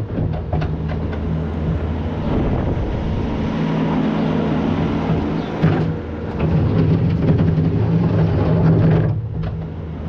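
Engine of farm machinery running under work with a steady drone, with a few knocks in the first second. The tone eases off briefly about six and again about nine seconds in.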